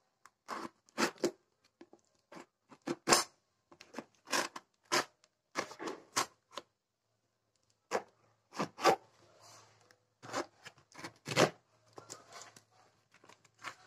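A small knife slitting and scraping through packing tape on a cardboard parcel: a run of short, sharp rips and scrapes at uneven intervals, with a brief pause about halfway through.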